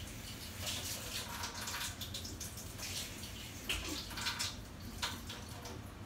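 Water running from a tap and splashing in irregular surges as a reusable My K-Cup filter is rinsed of used tea.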